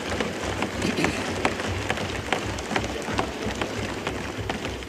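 Members of the National Assembly thumping their wooden desks in approval: a dense, irregular patter of many knocks over a low rumble.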